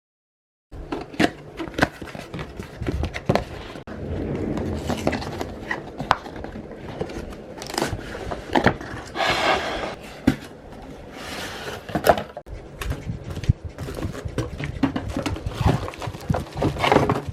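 Hands handling computer parts and packaging: scattered clicks and knocks, with a longer rustle about nine seconds in and a cluster of knocks near the end.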